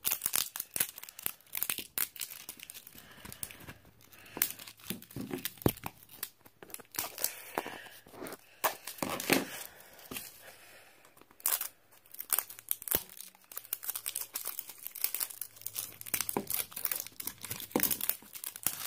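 Plastic wrapping on a Captivz toy egg crinkling and tearing as it is peeled off and the egg is worked open by hand: a continuous run of irregular crackles and sharp clicks.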